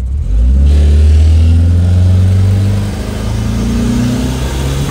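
Turbocharged mini truck's engine pulling under acceleration, its pitch climbing steadily, dipping about three seconds in, then climbing again. The ignition timing has been taken almost entirely out of the engine, which leaves it slow.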